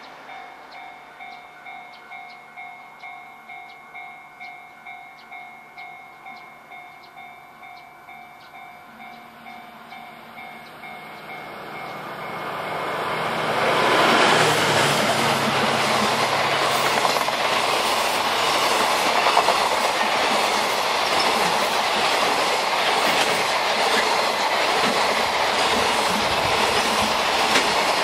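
A railway warning bell dings about twice a second. Then, from about twelve seconds in, a DF200 diesel-electric locomotive hauling a container freight train swells up loud as it passes close by, followed by the wagons' wheels clattering steadily over the rail joints.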